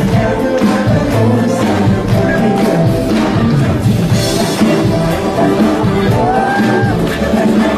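Loud live pop music over a concert sound system: a steady drum beat with singing. A short tone rises and falls about six seconds in.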